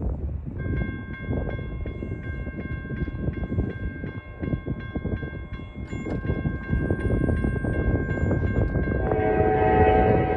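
A railroad crossing bell starts ringing about half a second in, striking about four times a second over a low rumble. Near the end the Norfolk Southern freight locomotive's air horn blows, loud.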